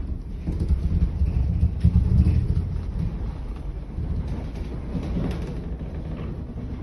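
Deep rumbling with scattered knocks and rattles: a building shaking in an earthquake. The rumble is strongest about two seconds in, then eases a little.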